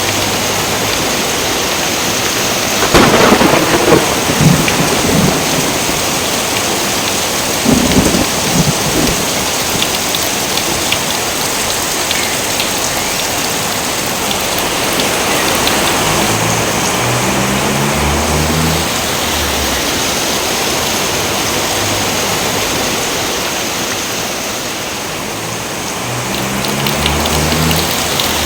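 Steady heavy rain, with two loud claps of thunder: one about three seconds in that rumbles on for a couple of seconds, and a shorter one about eight seconds in.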